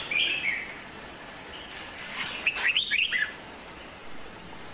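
Small bird chirping: a short burst of quick high chirps at the start, then a denser run of rapid falling chirps a couple of seconds later.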